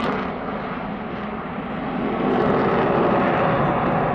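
Jet roar of a two-seat Sukhoi Su-27 fighter's twin AL-31F turbofan engines during its display. The roar dips slightly about a second in and swells again about two seconds in.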